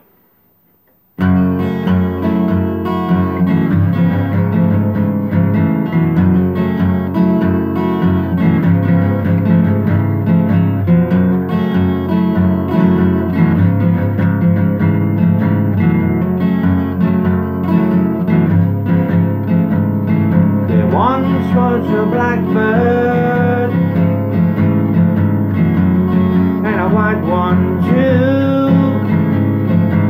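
Acoustic guitar strummed, starting about a second in after a short silence. A singing voice comes in briefly twice in the second half.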